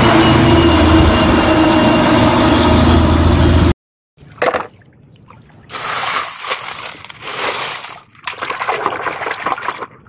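A heavy dump truck's diesel engine running loud and steady as it drives by, cut off suddenly a little under four seconds in. After a brief silence, wet gravel rattles and water splashes as a hand digs through the gravel in a plastic toy truck bed.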